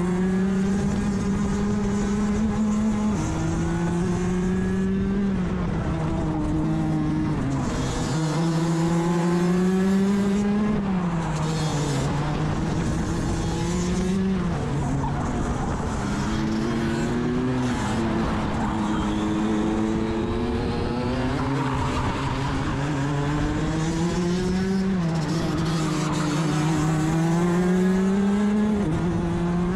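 Rotax DD2 kart's 125 cc two-stroke engine heard from onboard at racing speed. Its pitch climbs steadily and then drops sharply, again and again through the lap.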